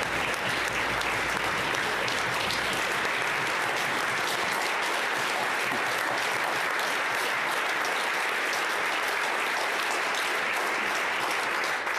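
Steady, sustained applause from many senators clapping.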